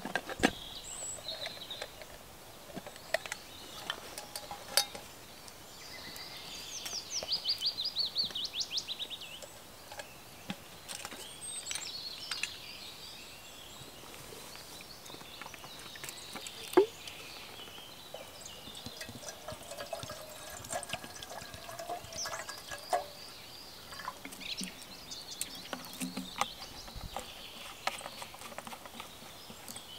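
Woodland birdsong, with one bird singing a fast high trill about seven seconds in and other chirps later, over scattered clicks and knocks of gear being handled, the loudest a sharp knock about seventeen seconds in.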